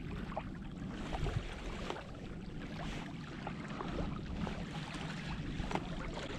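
Wind rumbling on the microphone with small lake waves lapping at a stony shore, steady throughout, with a few faint ticks.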